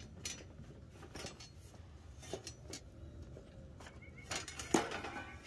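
Wooden-framed wire crate being handled and closed: scattered knocks and light rattles of the frame and mesh, the loudest cluster near the end.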